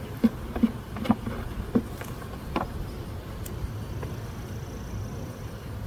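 Honey bees buzzing steadily around an open hive, with five sharp knocks in the first three seconds.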